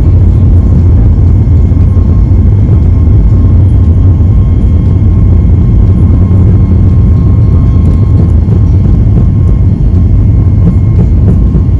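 Airliner's jet engines at takeoff power and its wheels rumbling on the runway during the takeoff roll, heard inside the cabin: a loud, steady rumble with a faint high whine.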